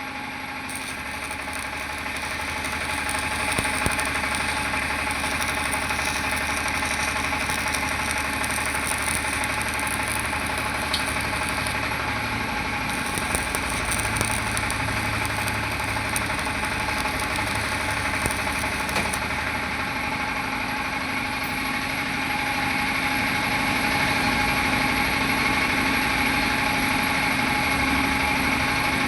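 A steady, engine-like mechanical running sound that holds one even tone, growing a little louder over the first few seconds and again about three-quarters of the way through.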